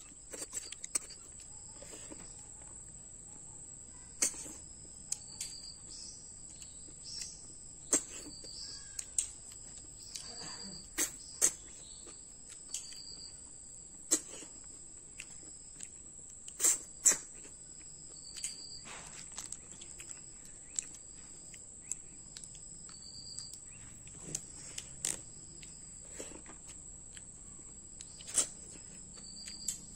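Close-miked eating of small snails with rice by hand: irregular sharp sucks, smacks and clicks as the snails are sucked from their shells and chewed. Behind them a cricket-like insect keeps up a steady high trill, with short chirps repeating about once a second.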